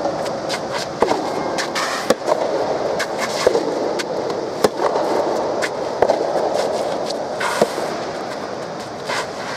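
Soft tennis rally: the rubber ball struck by rackets back and forth, sharp hits every second or so, over a steady background of spectator noise.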